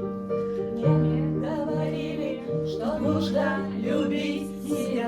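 Music with long held instrumental notes and a plucked guitar, joined by a voice singing in short wavering phrases.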